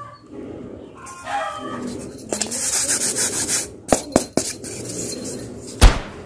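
Styrofoam blocks being handled and rubbed, giving a scratchy rubbing with a few short squeaks, then three sharp knocks and one loud thud near the end.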